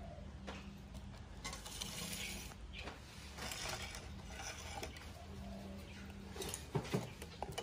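Watermelon slices being handled and eaten at a table: stretches of wet crunching and scraping, with a few sharp knocks near the end.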